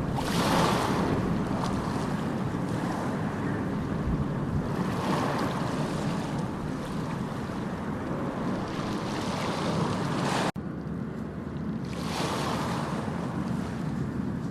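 Sea waves breaking and washing ashore, swelling in repeated surges about every four to five seconds over a steady wash. The sound cuts out for an instant about ten and a half seconds in.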